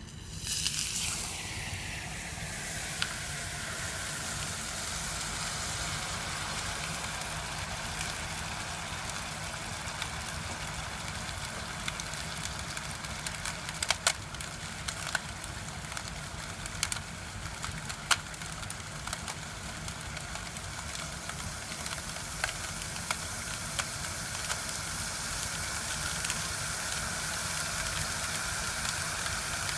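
A very cold liquid boiling off in a glass dish, starting suddenly with a steady hiss and sizzle; a tone falls over the first couple of seconds, and sharp cracks and ticks come now and then, loudest about 14 and 18 seconds in.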